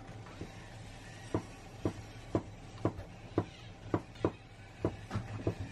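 Kitchen knife chopping shiitake mushrooms on a wooden cutting board: a run of sharp knocks about twice a second, starting about a second in.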